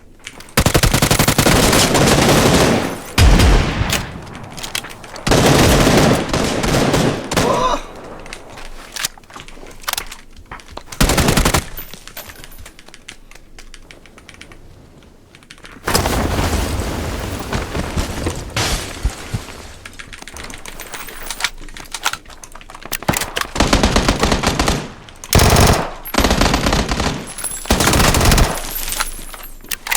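Automatic gunfire in repeated bursts of one to two seconds, with quieter stretches between them, from a first-person shooter game.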